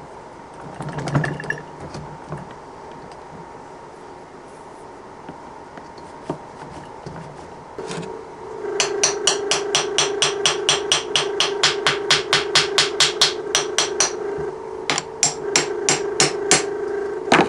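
Quick run of light hammer taps on the metal shift collar of a 1978 Foote three-speed transmission, about four or five a second with a short break, to knock it out of third gear: the collar won't come out of third without tapping. A steady hum starts about eight seconds in, under the taps.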